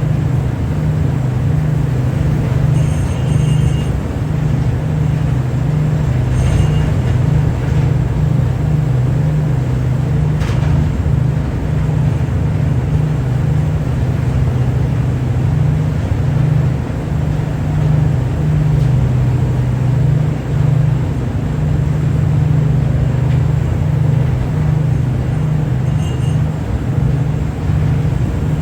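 Ship's engine droning steadily at sea, a deep, even hum under a wash of wind and water noise.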